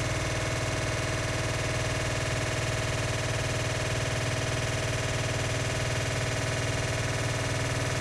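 Washing machine making a steady, weird drone: many tones stacked over a strong low hum, with a fine rapid flutter.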